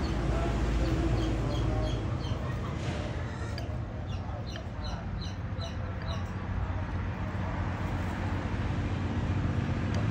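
Bird chirping: short high chirps repeated a few times a second, stopping about seven seconds in, over a steady low rumble.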